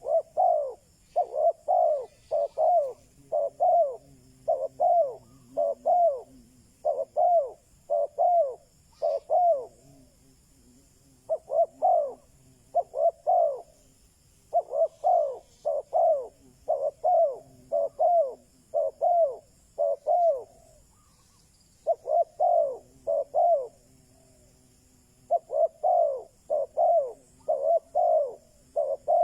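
Spotted dove cooing: short, arched coos repeated about twice a second in runs, with brief pauses between them. This is the male's song, used here as a decoy call to draw wild doves.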